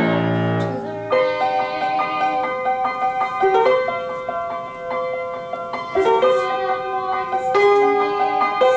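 Piano music: a slow instrumental passage of held notes and chords, with no singing.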